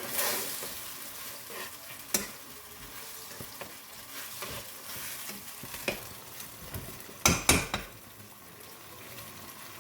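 Sweet and sour sauce sizzling steadily in a very hot wok as peppers, onions and pineapple are stirred through it. A few sharp knocks of a utensil against the wok, the loudest a pair about three-quarters of the way through.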